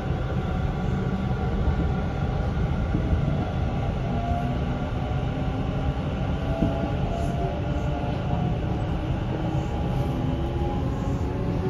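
Hanshin 1000 series electric train's Mitsubishi IGBT VVVF inverter and traction motors whining, several tones slowly rising in pitch as the train gathers speed, over a steady rumble of wheels on rail, heard inside the passenger car.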